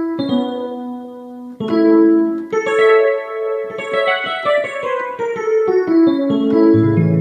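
Korg Krome keyboard playing a piano-like Korg M1 patch. Struck chords, then a run of notes falling in pitch, with a low bass note coming in near the end.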